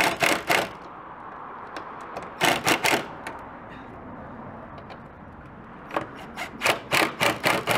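Impact gun hammering in short bursts of rapid clacks: once at the start, again about two and a half seconds in, and in a longer run from about six seconds on. It is driving an Allen-head bolt through the car's cowl into a jack nut, worked in short bursts so the bolt snugs up without overtightening.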